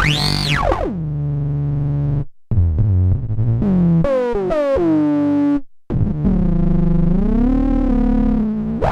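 Novation Circuit Tracks synth engine playing a preset. It opens with a fast sweep up and back down in pitch, then holds low notes broken by two brief drop-outs; in the middle several notes slide downward in pitch, and near the end a held note bends up and back down.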